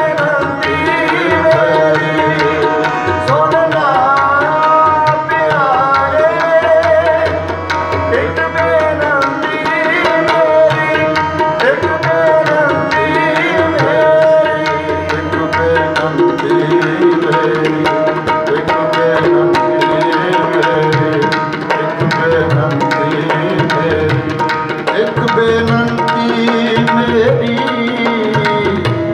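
Sikh kirtan: harmonium playing a held melody with tabla drumming a quick accompaniment, and a man singing over them.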